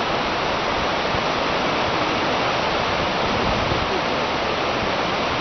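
Steady, even rushing of a rocky mountain river.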